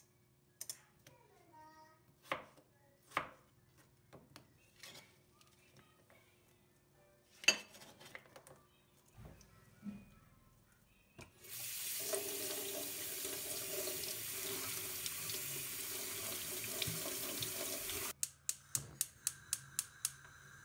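Kitchen water tap running into a sink for about six seconds, starting a little over halfway through. Before it come scattered knocks of utensils and dishes being handled, and after it a quick run of about nine sharp taps.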